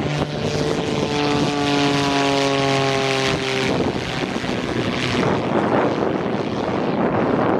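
Aerobatic biplane's propeller engine droning overhead, its pitch sliding slowly downward as it passes. After about three and a half seconds the drone turns into an even rushing noise with no clear tone.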